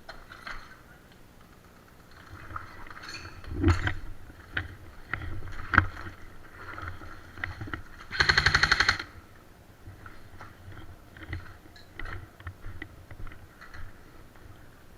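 Airsoft electric gun firing one rapid full-auto burst of just under a second, about eight seconds in. Scattered single knocks and thuds are heard before it.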